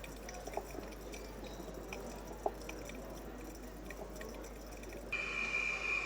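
Underwater coral reef recording, faint: scattered soft clicks and pops with a few short low calls. About five seconds in, a steady high whine with hiss comes in and runs past the end.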